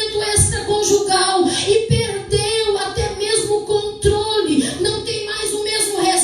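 A woman singing in a high voice, with low thumps of a beat underneath.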